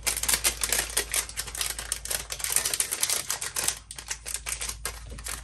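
Clear cellophane packaging sleeve crinkling and crackling as hands handle it and the paper pieces inside, in quick dense clicks.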